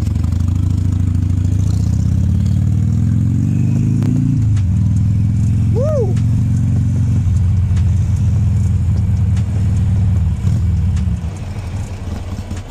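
Harley-Davidson Sportster 883's air-cooled V-twin being ridden: it revs up through a gear about two seconds in, drops in pitch at a gear change about four seconds in, then runs steady before easing off near the end.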